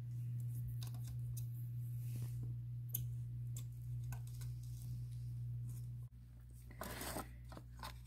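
Faint scattered clicks and light scraping as a soldering iron tip and needle-nose pliers work on an ECM motor's circuit board, desoldering the thermistor. A steady low hum sits under it and drops away suddenly about six seconds in.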